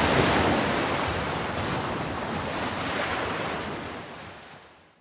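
A rushing whoosh sound effect for a logo animation: an even noise that swells up at the start, holds, and slowly fades away near the end.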